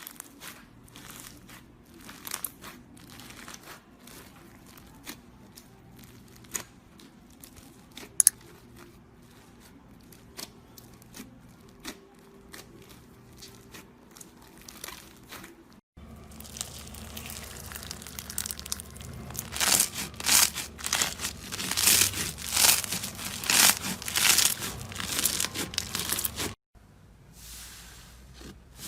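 Slime being squeezed and pressed by hand, giving a stream of small crackling and popping clicks. The crackling grows louder and denser from about halfway in.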